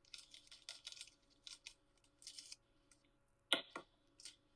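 Sticker sheets being handled, rustling and crinkling in short, uneven bursts, with one sharp tap about three and a half seconds in.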